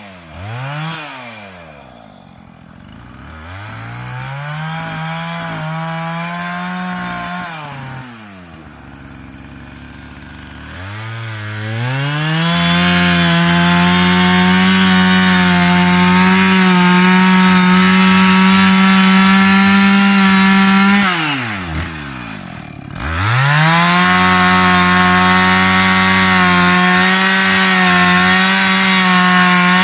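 Chainsaw revving up and dropping back several times while cutting wood. The longest run is a steady full-speed stretch in the middle, then it drops almost to idle and comes straight back up to full speed.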